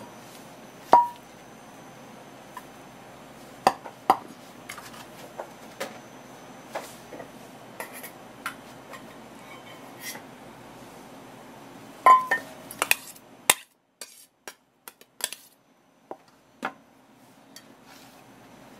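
Kitchen knife and stainless steel bowl clinking and tapping as minced okra is scraped up and put into the bowl: scattered light taps, with two loud ringing metal clinks about a second in and about twelve seconds in.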